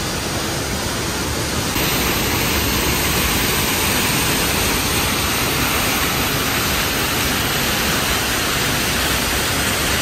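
Peričnik waterfall's lower fall: the steady, loud rush of falling water, a little louder and brighter from about two seconds in.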